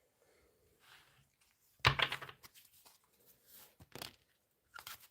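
Tarot cards being handled and shuffled, a loud papery rustle about two seconds in and smaller rustles near the end.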